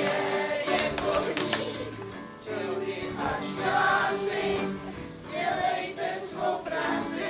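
A group singing a song together to acoustic guitar accompaniment.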